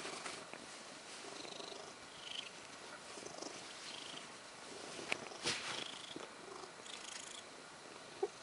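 Domestic cat purring steadily, with cotton bed sheet rustling as a hand smooths and tugs it; a few sharp clicks about five seconds in and one near the end.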